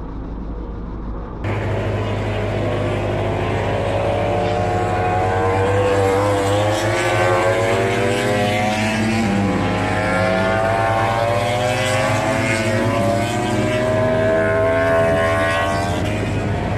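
MotoGP racing motorcycles' four-cylinder engines heard from trackside, several bikes' overlapping engine notes rising in pitch as they accelerate out of a corner, over a steady low hum. The sound starts abruptly about a second and a half in.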